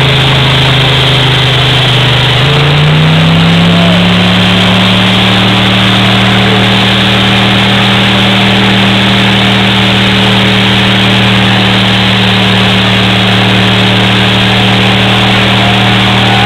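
A car doing a burnout: its engine is held at high revs, stepping up in pitch about three seconds in and then held steady, over the loud hiss of the spinning tires.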